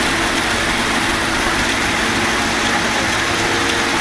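Heavy engine of concrete-pouring machinery running steadily, with a constant hum and hiss.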